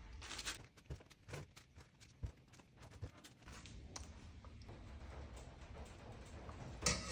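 Faint kitchen handling sounds: light taps, clicks and rustles as food is handled in a plastic colander and bowls, with a louder clink near the end.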